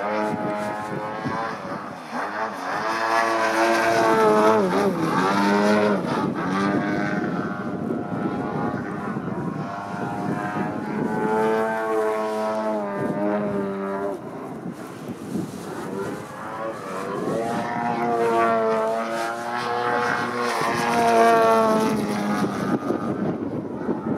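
Engine and propeller of an Extreme Flight 104-inch Extra 300 V2 radio-controlled aerobatic model plane in flight, rising and falling in pitch and loudness several times as it flies manoeuvres overhead.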